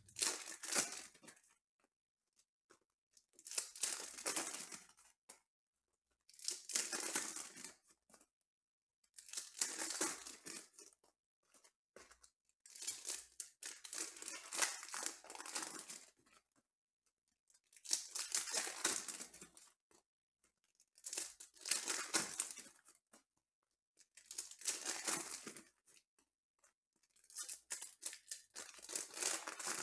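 Foil trading-card pack wrappers being torn open and crinkled, one pack after another. There are about nine rips, each a second or two long and roughly three seconds apart.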